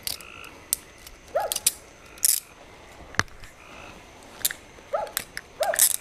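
Metal handcuffs being put on, with sharp ratcheting clicks and metal handling, among short pitched sounds that rise and fall, heard a few times.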